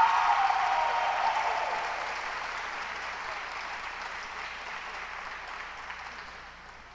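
Audience applause for the skaters, loudest at first and dying away steadily over several seconds.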